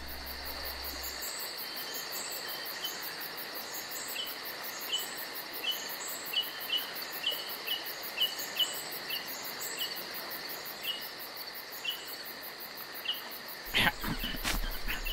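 Night-time ambience of crickets chirping in a steady high trill, with scattered short high chirps and a couple of sharp knocks near the end.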